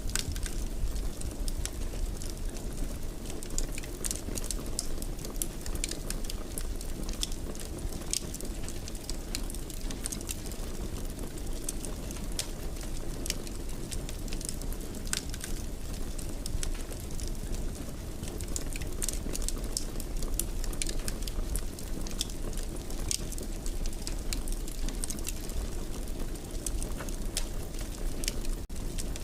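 Fire burning in a fireplace: a steady low rumble with many scattered small crackles and pops.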